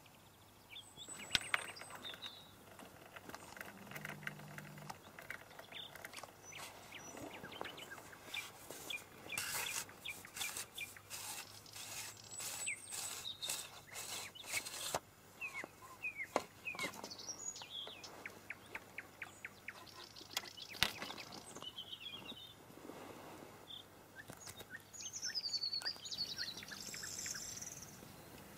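Small birds chirping and whistling in short high calls, with quick runs of rapid clicking notes, and a denser flurry of calls near the end.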